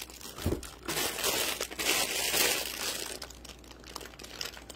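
Plastic poly mailer bag crinkling as it is pulled out of a cardboard shipping box and handled. It is loudest between about one and two and a half seconds in, then softer.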